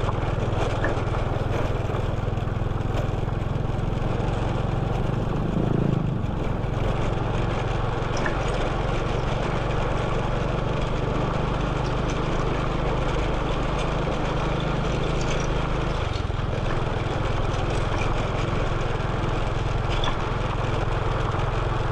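Motorcycle engine running steadily under way, with a constant rush of road and wind noise; the engine note shifts about sixteen seconds in.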